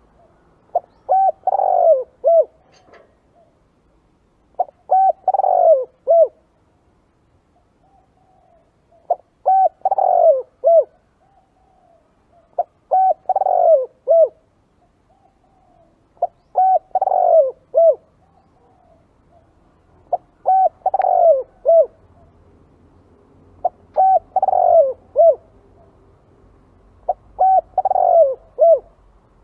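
Spotted dove cooing: a phrase of several coos repeated about every three and a half to four seconds, eight times. It is a decoy call recording for luring spotted doves.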